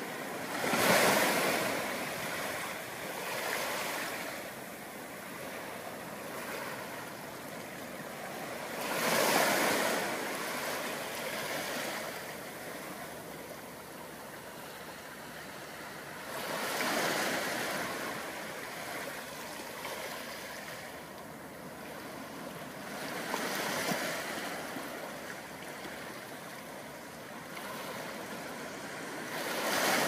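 Soft ocean waves breaking on a beach: a surge of surf about every seven or eight seconds, with a steady wash of water between.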